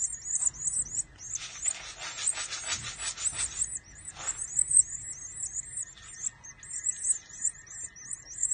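Goldfinch nestlings begging for food: a continuous run of rapid, high-pitched cheeps, several a second, as they gape at the feeding stick. A scratchy rubbing noise joins in from about a second and a half in until nearly four seconds.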